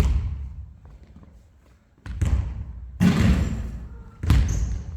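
Basketballs thudding on a gym floor: four separate heavy bounces, each followed by a short echoing ring-out in the hall.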